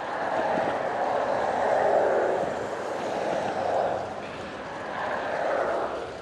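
Rushing wind and road noise heard while riding a bicycle, swelling and easing three times.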